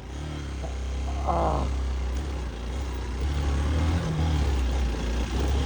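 Motorcycle engine running at low, steady revs, growing gradually louder.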